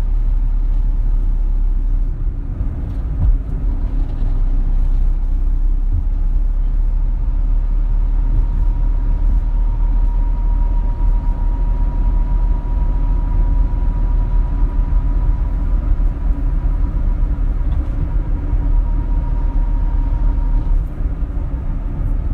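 Steady low rumble, with a faint steady whine in the middle that stops a little before the end.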